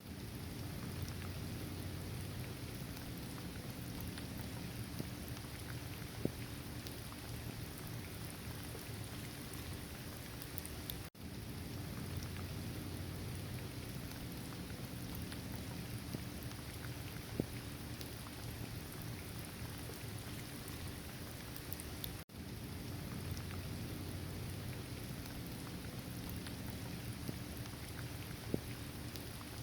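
Steady rain falling on a surface, with scattered louder single drop ticks over a low, even rumble. The sound cuts out for a split second twice, about a third and two thirds of the way through.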